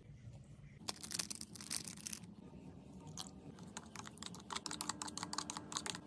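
Metal spoon stirring sauce in a ceramic bowl, scraping and clinking against the bowl: a quick flurry of clicks about a second in, then a longer run of rapid light clicks toward the end.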